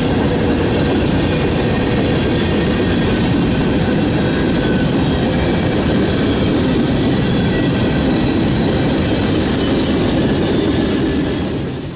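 Freight train cars (boxcars, a tank car and covered hoppers) rolling past close by: a loud, steady rumble of steel wheels on rail that cuts off near the end.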